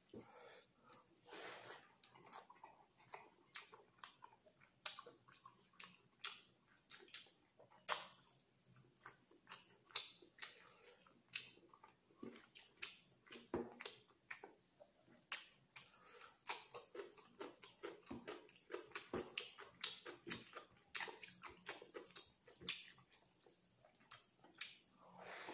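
Eating by hand: fingers squishing and mixing rice into chicken liver curry on a plate, with chewing and lip-smacking, heard as a run of irregular soft wet clicks and squelches.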